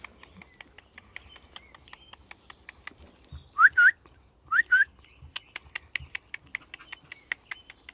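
High whistle-like calls: two pairs of short, quickly rising notes about a second apart, near the middle, over faint scattered clicking.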